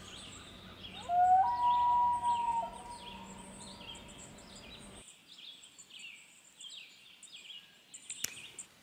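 Wild birds chirping in a quick, repeated chorus of short high notes. About a second in, a louder, clear held call starts low, steps up in pitch and holds for over a second. The low background rumble cuts off abruptly about halfway through, and there is a sharp click near the end.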